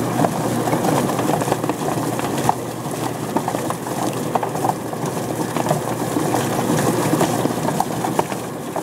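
Homemade Whizbang-style chicken plucker running: a steady electric-motor hum under a rapid, irregular slapping and clattering as the rubber plucker fingers on the spinning feather plate tumble a chicken against the barrel's fingers. Water sprays from the drilled line around the rim.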